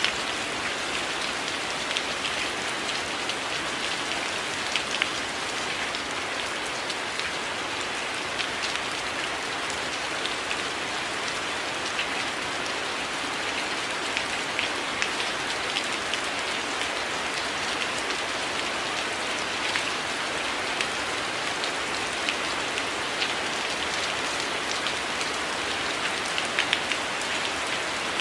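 Gentle rain falling on a window: a steady hiss of rain with many scattered sharp drop taps.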